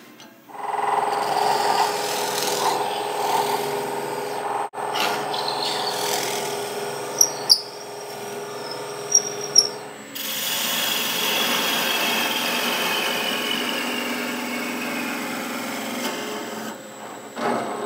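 Wood lathe spinning a wooden chisel-handle blank while tools cut it, in three short takes. A drill bit bores into the end of the spinning blank with four sharp clicks and a steady high squeal. Then a chisel scrapes along the blank in a long hiss with a slowly falling tone.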